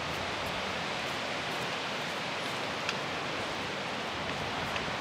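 Strong wind rushing steadily through the trees and over the campsite, with a faint click about three seconds in and another near the end.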